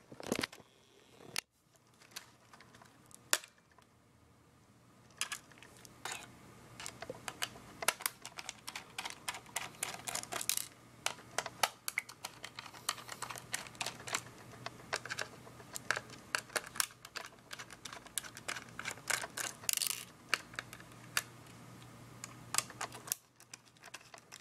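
Small precision screwdriver working tiny screws out of a camera's main board and plastic chassis: a long run of irregular light clicks and ticks, with handling of the plastic casing.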